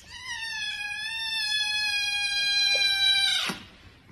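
Kitten giving one long, high meow lasting about three and a half seconds, its pitch sagging slightly and then dropping off at the end.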